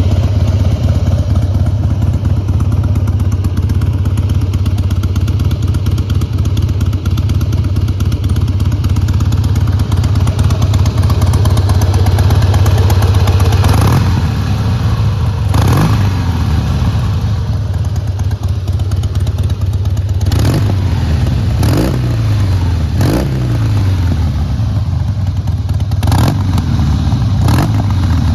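2004 Harley-Davidson Heritage Softail Classic's Twin Cam 88B V-twin idling. From about halfway it is revved in a series of short throttle blips, seven in all, each falling back to idle.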